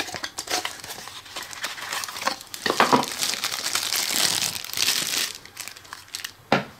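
A clear plastic bag crinkling and rustling as it is handled and pulled off a small camera, densest in the middle. It dies away, then one sharp knock comes near the end.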